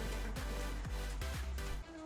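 Background electronic music with a heavy kick drum about twice a second over a bass line. Near the end the beat drops out and only the melody carries on.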